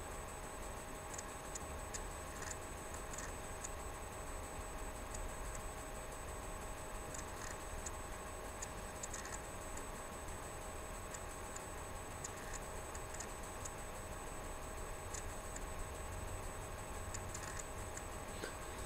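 Quiet room tone: a steady low hum with a few faint electrical whine tones, and scattered faint ticking clicks at uneven intervals.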